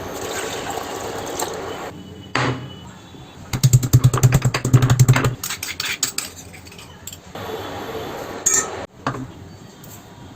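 Kitchen utensils clinking and clattering, with a rapid run of knocks lasting under two seconds a few seconds in and single knocks before and after.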